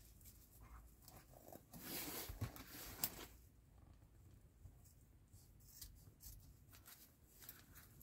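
Scissors cutting a white strip on a small metal model seat frame: a short rustling cut about two seconds in that ends in one sharp snip, with faint handling ticks around it.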